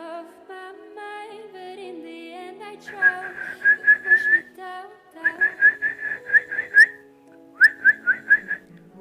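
Background music, over which three quick runs of short, sharp whistled chirps sound, about five a second, starting about three seconds in.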